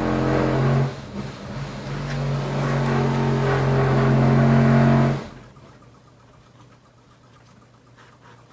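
An engine running loudly with a steady hum, dipping about a second in and building again, then cutting off abruptly about five seconds in.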